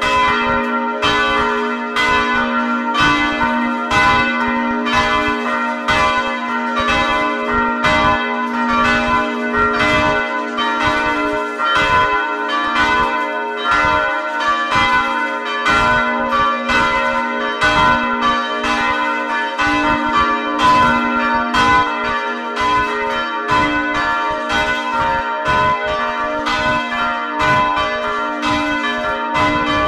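Church bells ringing together in a full peal (plenum), close up inside the belfry as they swing. The clapper strikes overlap in an irregular rhythm over a steady hum of ringing tones.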